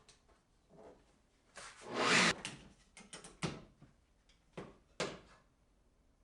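Wood being handled: a rubbing slide about two seconds in, then a few light knocks.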